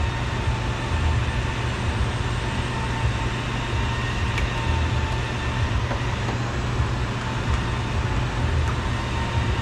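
Steady low hum and hiss of background noise with a faint constant whine, with a few faint clicks a few seconds in.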